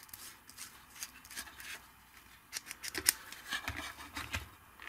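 Light clicks and small rattles of metal tool pieces being handled in the plastic case of a JAKEMY JM-8127 precision screwdriver set, in short bunches that are busiest a little after halfway.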